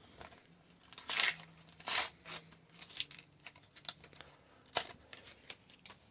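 Sticker-pack wrapper crinkling and tearing as it is opened, with louder rustles a little over a second in and again around two seconds, then light ticks and clicks of stickers being handled.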